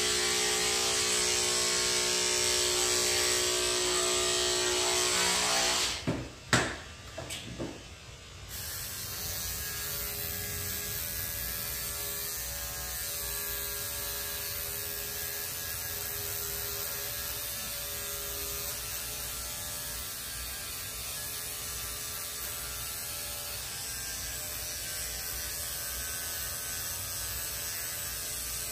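Electric dog grooming clippers running steadily as they trim a schnauzer's head. About six seconds in the clipper is switched off, with a few sharp clicks as the groomer changes clippers. A second, quieter clipper then runs steadily.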